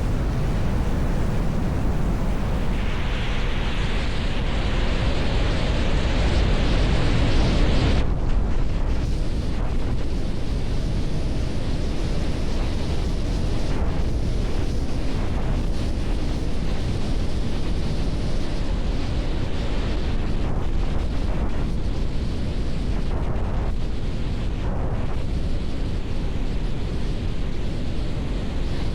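Strong wind buffeting the microphone: a steady, deep rumbling noise. A brighter hissing stretch joins it a few seconds in and stops abruptly about eight seconds in.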